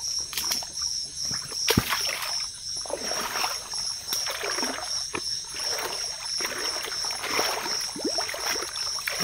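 Someone wading through flooded swamp water, each stride sloshing and splashing, roughly one a second, with one sharp knock about two seconds in. A steady, pulsing chirr of crickets or other insects carries on under it.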